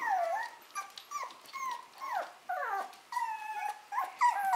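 A litter of 6½-week-old puppies whining and yelping over one another in many short, high cries that mostly fall in pitch, the puppies calling to be let out of their pen and picked up.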